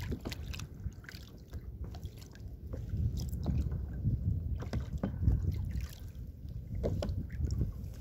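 Wind noise on the microphone, with water lapping against a plastic kayak's hull and scattered small clicks and knocks.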